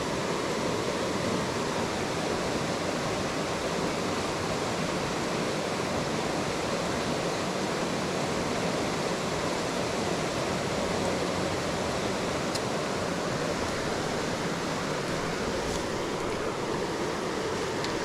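Shallow rainforest creek rushing steadily over small rapids and rocks: an even, continuous water noise.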